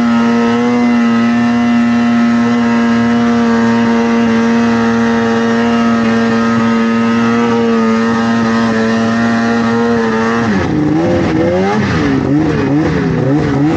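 Snowmobile engine running hard at a steady high pitch while climbing a steep snow slope. About ten seconds in, the note drops and swings up and down as the throttle is eased off and blipped.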